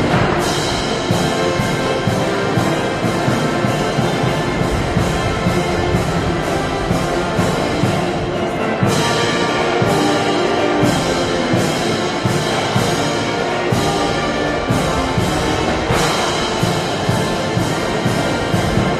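Brass band music with timpani and drums keeping a steady march beat of about two strokes a second.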